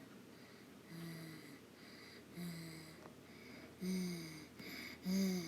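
A voice making hiccup sounds, four in a row about every second and a half, each a short pitched 'hic' that falls a little and comes louder than the one before.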